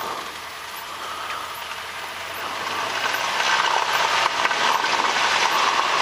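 1978 Cessna 172 Skyhawk's four-cylinder Lycoming engine and propeller, heard from inside the cockpit, getting louder about three seconds in as the throttle is opened for the takeoff roll, then holding at the higher power.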